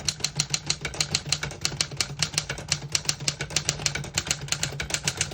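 A 1956 Remington Travel-Riter manual portable typewriter typing a sentence: rapid, even keystrokes, about seven a second, the type bars striking cleanly with no keys skipping or sticking.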